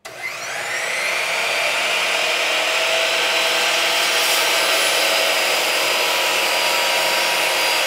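Electric miter saw motor switching on, whining up to speed within about a second, then running steadily at full speed.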